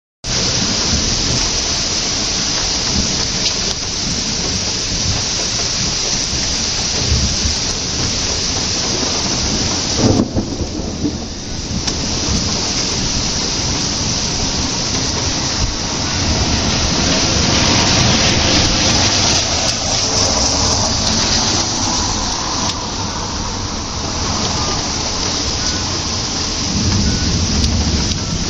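Heavy rain pouring steadily during a thunderstorm, with thunder rumbling low underneath. A sudden loud crack comes about ten seconds in.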